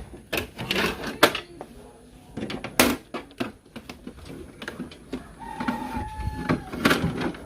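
Handling noise around a Canon Pixma G2010 printer: a string of irregular clicks and knocks with plastic rustling, and a short steady tone lasting about a second past the middle.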